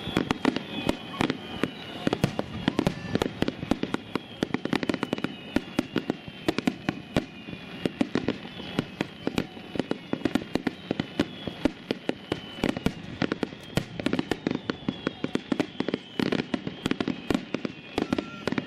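Aerial fireworks in a rapid, continuous barrage of shell bursts, many bangs a second with no pause. Faint high whistles glide downward over the bangs.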